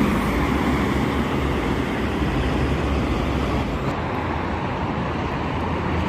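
Highway traffic passing at speed: the steady drone of a bus's diesel engine and the rush of tyres on the road, with the high hiss easing about four seconds in.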